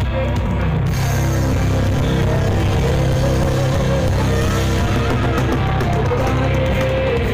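Live band playing loud, amplified rock-style music through a stage PA, with guitar, bass and drums.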